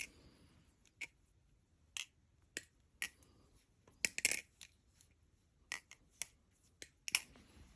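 Balisong (butterfly knife) being flipped: its handles and latch clack against each other in irregular sharp clicks, about a dozen, some coming in quick clusters. The knife's pivots are loose, and its owner says it sounds terrible.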